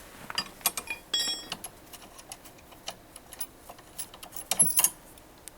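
Metal clicks and clinks from a 10 mm Allen wrench working the bolts out of a massage chair footrest actuator's front mount, with a brief metallic ring about a second in and a louder flurry of clinks near the end.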